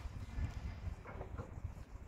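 Wind rumbling unevenly on the microphone, with a few short faint knocks from work on a fairground waltzer's steel framework.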